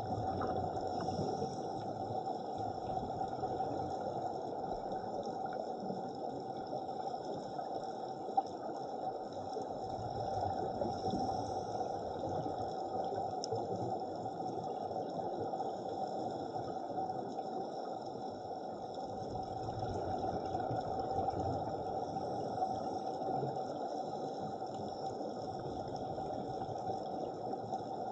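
Steady underwater noise picked up by a camera on a night dive: an even hiss and rumble with faint steady high tones above it, swelling and easing slowly.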